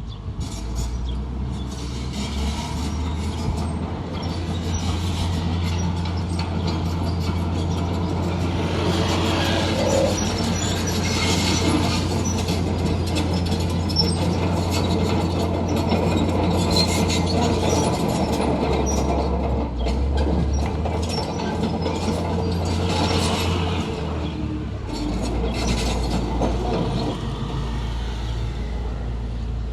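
Crawler bulldozer at work: a steady diesel engine note with steel tracks clanking and squealing over it, and the engine pitch shifting a few times as the load changes.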